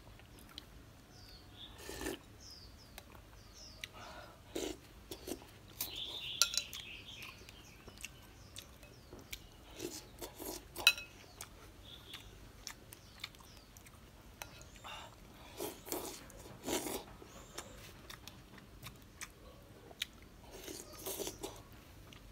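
Close-up chewing and biting of milk-dipped wafer rolls, in short scattered bouts, with a metal spoon clinking and scraping in a glass bowl of milk; one sharp clink about halfway through is the loudest sound.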